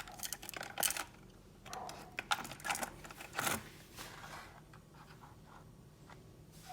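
Handling noises: a run of clicks, scrapes and rustling in the first four seconds, then only a few faint ticks.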